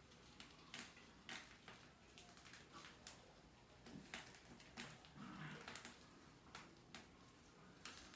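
Faint, irregular clicks and scratches, roughly one a second, of mice's claws moving over a wire fan-guard lid and plastic bucket rim.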